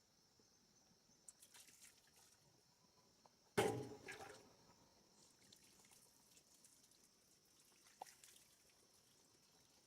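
Water splashing once, sharply, about three and a half seconds in, and again more faintly near the end, over a steady high-pitched insect chirring.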